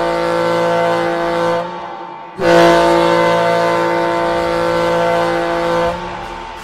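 Hockey goal horn, the Coachella Valley FireBirds' custom horn, sounding in long steady blasts. One blast fades out about a second and a half in, and the next starts about a second later and holds for about three and a half seconds.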